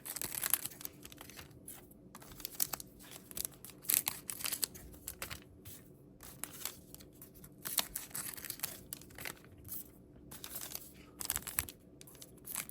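Foil trading-card pack wrappers being cut and torn open, crinkling, with irregular sharp clicks and rustles throughout.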